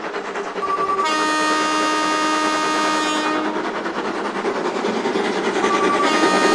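Train horn sounding twice: each time a brief short note followed by a long held blast of about two and a half seconds, the second blast starting near the end, over steady train running noise.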